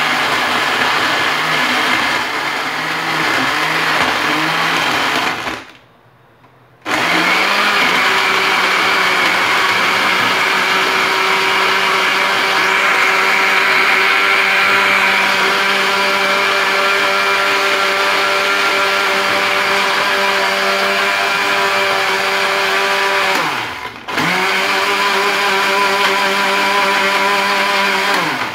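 Countertop electric blender running as it blends peaches, banana, milk and crushed ice into a smoothie. It runs about five seconds with an unsteady pitch, stops for about a second, then runs steadily for over fifteen seconds. Near the end it briefly drops in pitch, picks up again, and cuts off.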